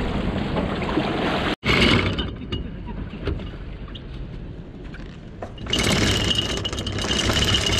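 Wind and water noise on the microphone, breaking off suddenly after about a second and a half. After a quieter stretch, a boat's motor comes in a little over five seconds in and runs steadily with a constant high whine.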